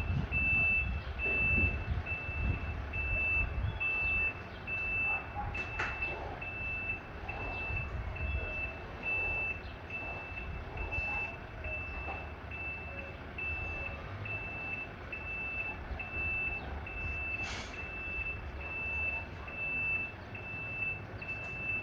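Semi-trailer truck's reverse alarm beeping steadily, about one beep a second, while the truck backs up to park, over the low rumble of its diesel engine. A short hiss comes late on.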